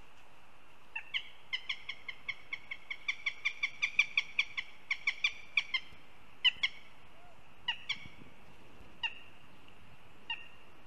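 Adult northern goshawk calling: a rapid kek-kek-kek series of short, sharp calls, about four or five a second, growing louder toward the middle. It then slows to single or paired calls a second or more apart, ending near the end.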